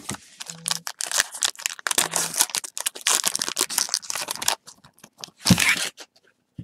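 A trading-card pack wrapper being torn open and crinkled, in a long run of ragged tearing and rustling, with one more short, loud rip near the end.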